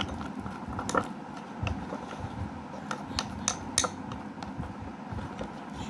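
Metal spoon stirring a thick gram-flour and aloe vera paste in a glass bowl, clinking and scraping against the glass at irregular moments.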